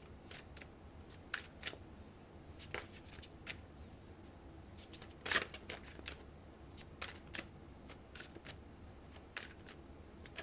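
An oracle card deck being shuffled by hand: a run of soft, irregular card flicks and slaps, the loudest about halfway through.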